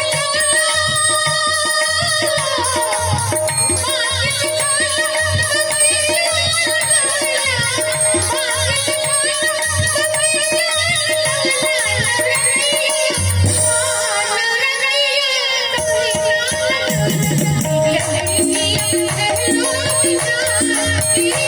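Indian folk song: a male singer singing in a woman's voice over instrumental accompaniment with a regular drumbeat that drops out briefly past the middle.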